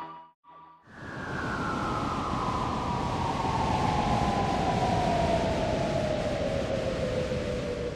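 Science-fiction sound effect of a spaceship plunging toward Earth: a steady rushing noise with a whistling tone that falls slowly and steadily in pitch, starting about a second in.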